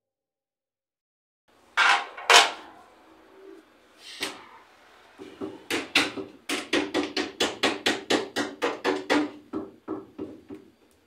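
Repeated hard, hammer-like knocks: a few separate blows, then a fast, even run of about four or five a second that slows and stops near the end.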